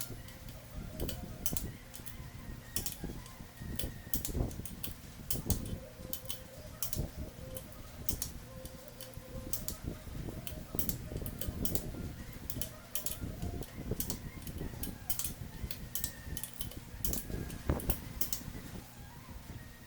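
Tools and metal engine parts clicking and tapping irregularly as they are handled, over a steady low hum.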